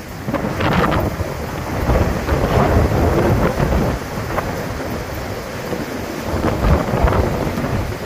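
Hurricane wind gusting with rain, the wind buffeting the phone's microphone in heavy low rumbles that ease a little about halfway through.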